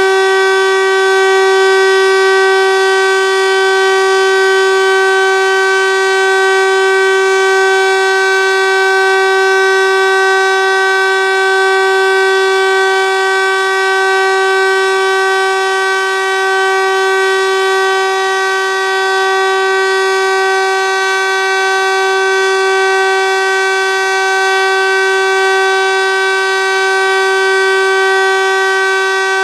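Landert MSL-3 electric motor siren sounding a loud, steady tone at one unchanging pitch, with no rise or fall. This is the steady-tone signal of the Austrian civil-defence test alarm, not the rising and falling alarm wail.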